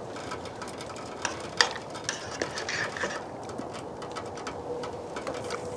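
A spoon adding creme fraiche to a pot of simmering soup and stirring it in: a few light clicks and scrapes of the utensil against the pot over a steady soft hiss.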